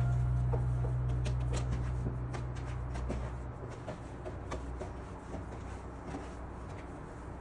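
Soft, scattered clicks and sticky smacks of hands stretching and patting wet, olive-studded sourdough dough on a smooth work surface. A low tail of background music fades out over the first three seconds or so.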